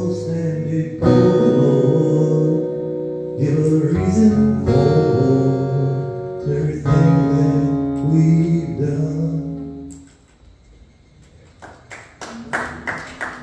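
A man singing to his own strummed acoustic guitar, the song ending about ten seconds in as the last chord rings away. Near the end, clapping starts.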